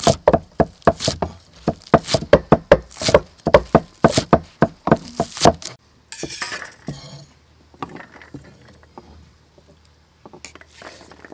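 Cleaver chopping spring onions on a wooden chopping block: rapid knocks, about four a second, for some six seconds. Then a short scrape and clink as chopped chillies are slid off the blade onto a steel plate.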